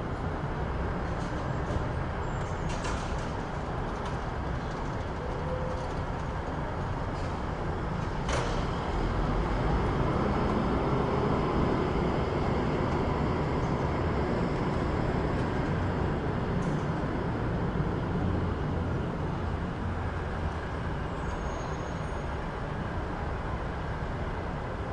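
City street traffic: a steady low rumble of passing vehicles that swells for a few seconds about ten seconds in, with a few short clicks and knocks over it, the sharpest about eight seconds in.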